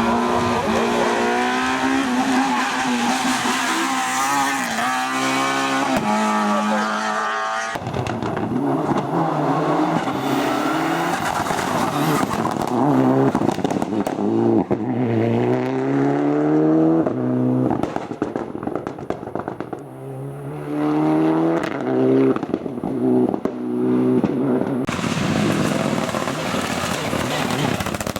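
Race cars on a hillclimb course accelerating hard: the engines rev up and drop back again and again as they shift through the gears. Several passes are cut together, each changing abruptly to the next.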